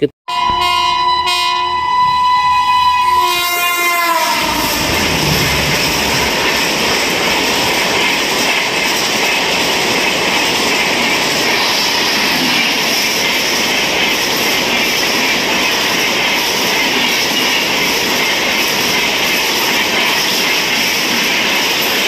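A train horn sounds for about four seconds and drops in pitch as it cuts off. It is followed by the steady rushing noise of a train running.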